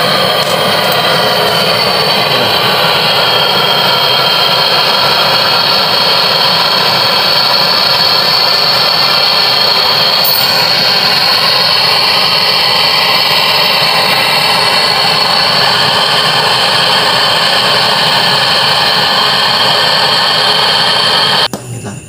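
Handheld brazing torch burning with a steady, loud hiss as copper refrigerant pipe joints on an inverter aircon compressor are brazed with silver rod. The flame shuts off abruptly about a second before the end.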